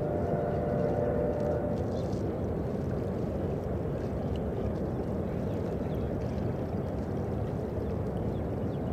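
Steady low rumble of a distant CSX mixed freight train carrying across the river, with a few faint held tones in the first couple of seconds.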